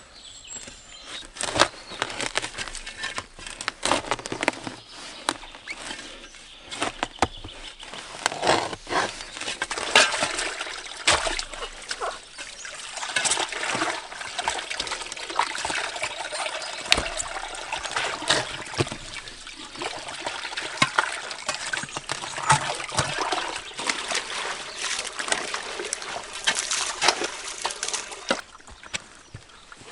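Water trickling and splashing, broken by many irregular sharp clicks and knocks.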